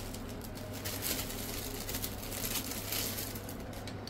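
Faint patter of red chili powder being sprinkled onto hung curd over cauliflower and potato pieces in a bowl, over a low steady hum.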